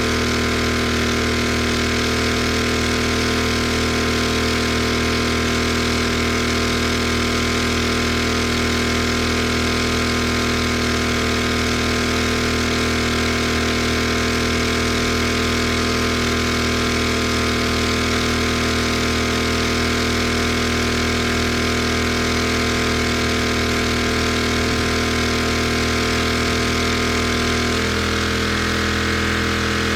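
Gas-engine pressure washer running steadily, its pitch shifting slightly near the end.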